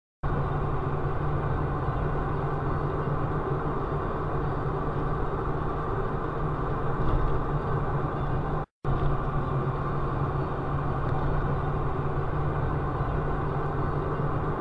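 Steady engine and road noise heard from inside a moving vehicle's cab, with a constant low hum. It cuts out for a split second a little past halfway.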